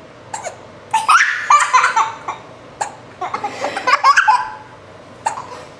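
Young child laughing hard in two long bursts of giggles at a baby's hiccups, with single short, sharp hiccups from the baby about every two and a half seconds.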